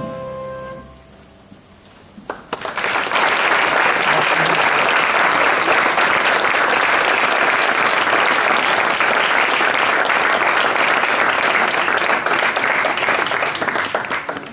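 The last notes of a piece of music fade out, then an audience applauds, starting about two and a half seconds in and dying away near the end.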